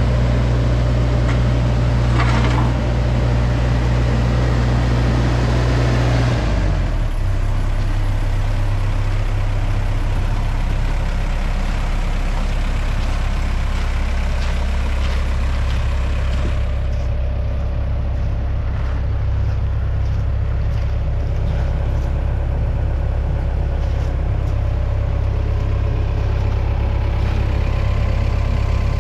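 John Deere 60G mini excavator's diesel engine running steadily, with a deep, even hum. It drops to a slightly lower speed about six seconds in.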